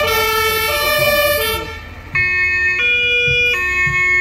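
A fire brigade vehicle's two-tone siren (German Martinshorn) sounding, alternating between a low and a high note about every three quarters of a second from about two seconds in. Before it, for about the first second and a half, a loud dense chord of several horn tones sounds and then breaks off.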